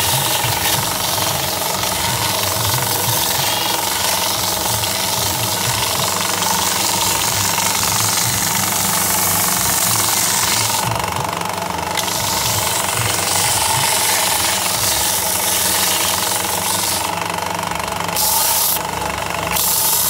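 Ferm bench belt sander running steadily, its motor humming under the hiss of a wooden box being sanded against the moving abrasive belt. The high sanding hiss drops out briefly about halfway through and a couple of times near the end.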